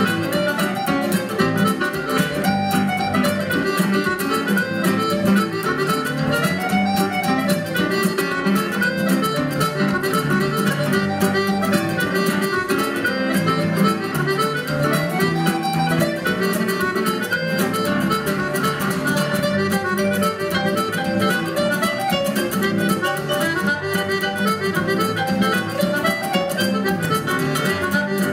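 Irish traditional dance tune played continuously with a quick, even beat, melody instruments over a strummed accompaniment.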